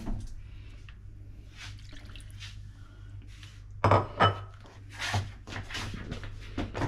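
Kitchenware clattering: a handful of sharp knocks and clinks on pans and utensils, starting about four seconds in after a quiet stretch with a low steady hum.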